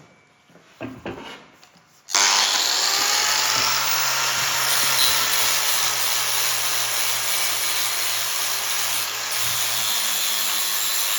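A few light knocks, then about two seconds in an electric power tool switches on abruptly, spins up and runs steadily with a loud hissing grind over a low hum.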